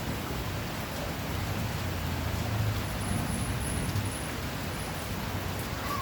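Steady rain noise with a low rumble underneath that swells about two to four seconds in.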